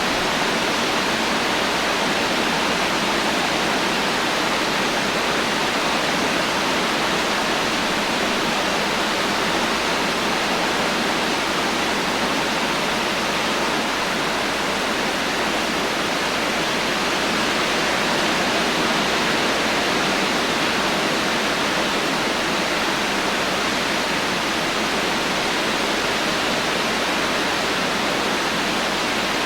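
Heavy rain falling steadily, an even hiss with no thunder and no single drops standing out.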